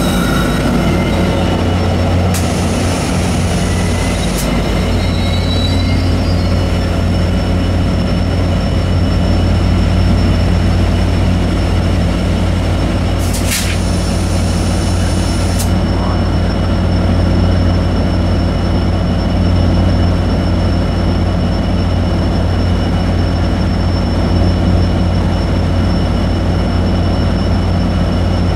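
Diesel passenger locomotive running steadily with a constant low hum and a few thin high steady tones. Short hisses of air come about two seconds in and again around thirteen seconds, the second starting with a sharp click.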